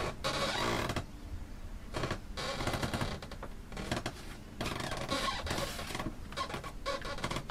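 Hands folding and shaping bread dough on a floured plastic cutting board: soft scraping and rubbing of dough and flour on the board, in uneven bursts with short pauses.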